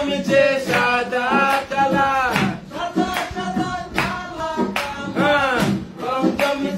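Music: a Bengali song, a man singing long, bending notes over a regular drum beat.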